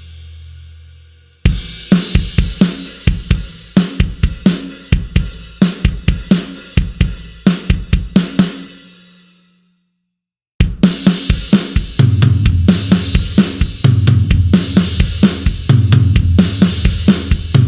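Sampled acoustic drum kit from a Kontakt library playing rock grooves: kick, snare, hi-hat and cymbals. The first beat ends about nine seconds in with the cymbals ringing out, then after a short silence a second beat starts and runs on.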